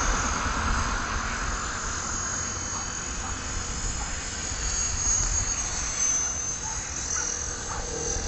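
Thin, high whine of a small model aircraft's motor flying at a distance, its pitch wavering slightly. Wind rumbles on the microphone at the start and eases after a second or two.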